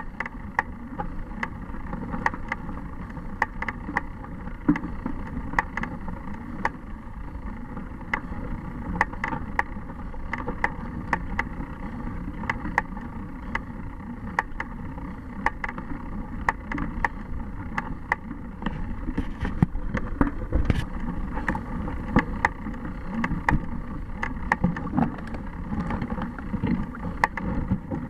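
Bicycle riding over a rough, leaf-covered dirt trail: a steady rumble of tyres and movement, with frequent irregular clicks and rattles as the bike jolts over bumps.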